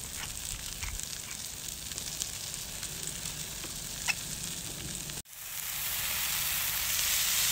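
Thick-cut pork belly sizzling on a round griddle pan over a portable gas burner, with a few light ticks as salt and pepper are ground over it. About five seconds in the sound drops out for an instant, then the sizzling comes back louder and closer.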